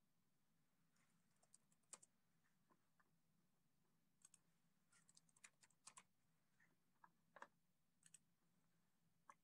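Near silence with faint, irregular clicks of typing on a keyboard, a quick run of them about halfway through.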